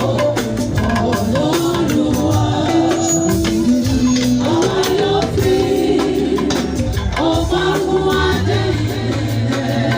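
Yoruba gospel music: a choir singing a praise song over a band, with steady rattling percussion such as a tambourine or shaker.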